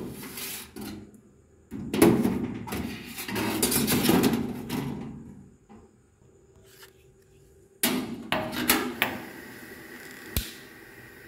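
Sheet-metal oven trays clattering and scraping as they are slid out of and back into a stove-top oven, with several sharp metal knocks, a quiet pause in the middle and a single sharp click near the end.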